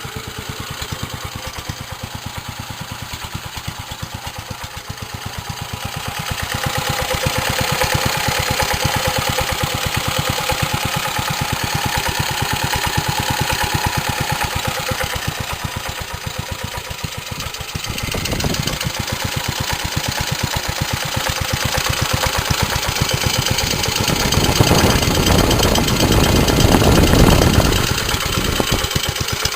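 1946 J.A.P. Model 5 single-cylinder side-valve four-stroke petrol stationary engine running unloaded with its governor locked off, a steady rapid firing beat. It gets louder about a fifth of the way in and louder again for a few seconds near the end. It runs acceptably but, unloaded, not as well as it would under a heavy load.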